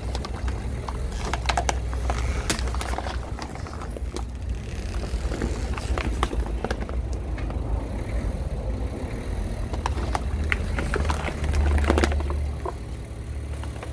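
Plastic soda bottles crackling and crunching under a slowly rolling car tyre, over a steady low rumble. The loudest crunch comes near the end, as a bottle flattens and spills its cola.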